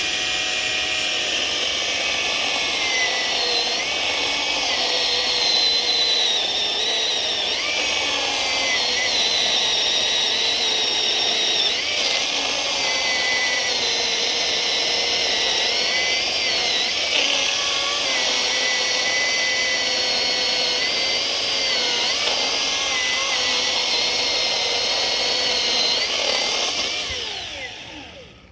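Milwaukee battery-powered 16-inch chainsaw running under load while cutting through a log, its whine dipping and recovering as the chain bites, then winding down near the end as the cut finishes.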